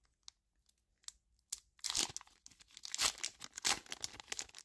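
Pokémon booster pack's foil wrapper being torn open and crinkled, in short crackling bursts starting about two seconds in after a few small clicks.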